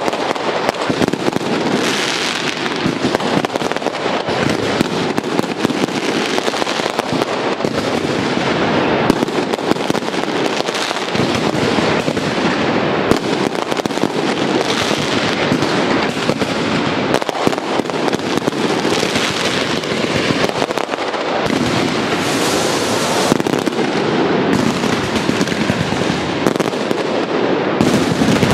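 Dense fireworks barrage: many shells bursting at once into crackling stars. Their pops and crackles run together into a continuous loud rattle, with heavier bangs here and there.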